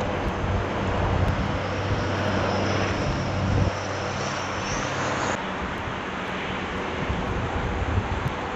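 A steady engine drone with a thin high whine over it. Both stop abruptly about five seconds in, leaving an even outdoor noise.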